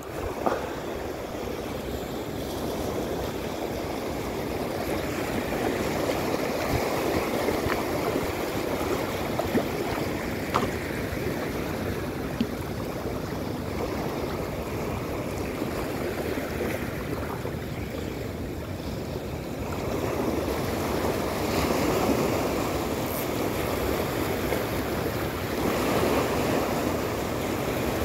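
Small sea waves washing in over a rocky, pebbly shore: a steady surf wash that swells louder a few times, notably about two-thirds of the way in and again near the end.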